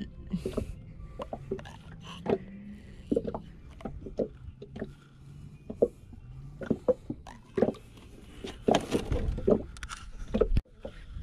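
Handling noises on a small boat as a caught fish is held and unhooked: irregular knocks, clicks and rustles against the deck and fishing gear, with a few brief low voices.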